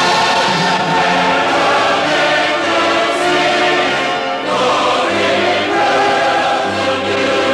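Choir singing with musical accompaniment: a sustained, slow choral piece such as a Christmas hymn.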